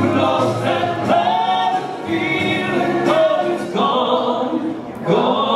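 Two men singing a soul ballad together into handheld microphones, with held, gliding notes and music behind them.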